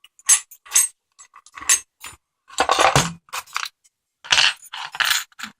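Metal hand tools clinking and clattering as they are rummaged through for a Phillips screwdriver, a run of irregular knocks with a longer rattle near the end.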